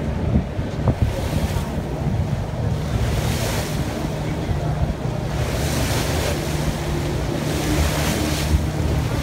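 Wind buffeting the microphone on a moving boat over the steady low rumble of its engine, with water rushing past in surges of hiss about every two seconds.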